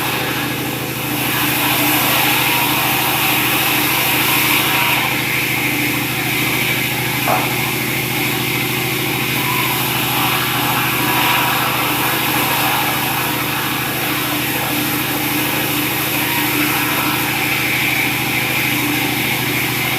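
Sawmill machinery running steadily, an engine-like hum with a high hiss over it, and one short click about seven seconds in.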